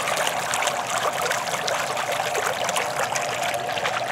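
Water trickling steadily, dotted with many small drips and splashes.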